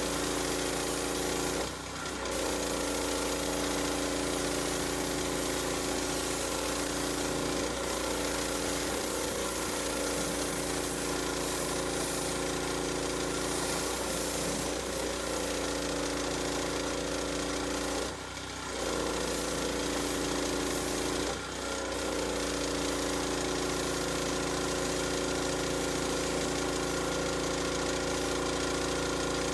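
Pressure washer running while its wand sprays water onto a car, a steady machine drone under the hiss of the spray. The sound dips briefly three times.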